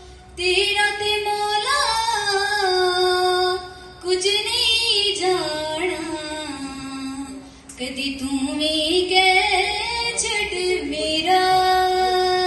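A young woman singing devotional verse solo, in long ornamented phrases with long held notes, pausing for breath about 4 and 8 seconds in.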